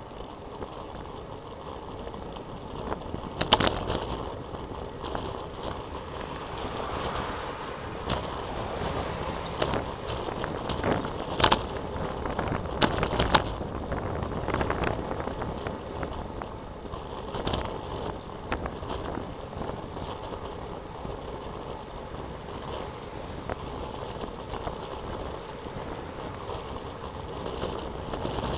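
Wind and road noise of a moving bicycle, recorded from a camera riding on it, with a few sharp clicks and rattles, the loudest about 3.5, 11.5 and 13 seconds in.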